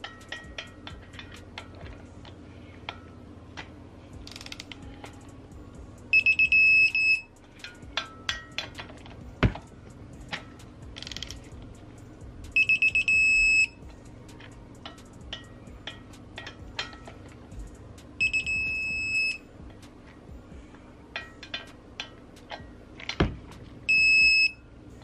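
A digital torque wrench beeping four times, one steady high tone about a second long each time, as each flywheel bolt reaches its 36 ft-lb target. Between the beeps come ratchet clicks and two louder clacks from the wrench and socket on the bolts.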